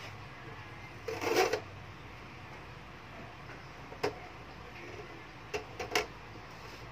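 Plastic frame and side clips of an LED TV panel snapping loose as the edge is pried open: a short crunching scrape about a second in, a sharp click near the middle, and three quick clicks near the end.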